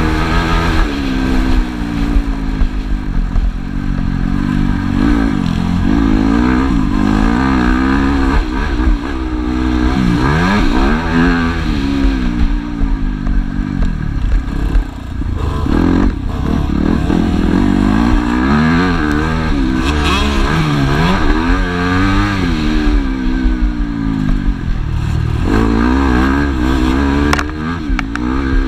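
Dirt bike engine heard onboard, close up, revving up through the gears and dropping off again and again as the throttle is opened and closed around a motocross track.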